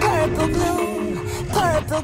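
Background music: an electronic track with a steady beat and gliding melodic notes.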